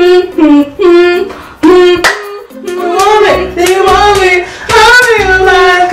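Teenage girl singing in a female voice, with short sung phrases at first, then long wavering held notes through the second half.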